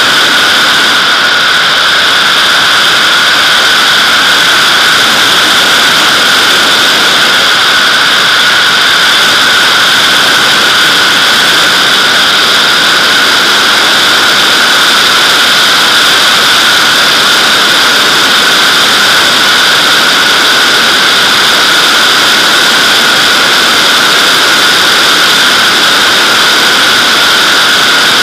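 Loud, steady rush of airflow over a camera mounted outside on the fuselage of a Nimbus-2 sailplane in gliding flight. It is an unchanging hiss with a hollow, whistling colour.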